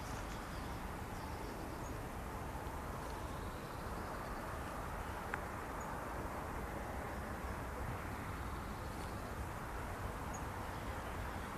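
Steady outdoor background noise, a low rumble and hiss with no clear single source, and one faint click about five seconds in.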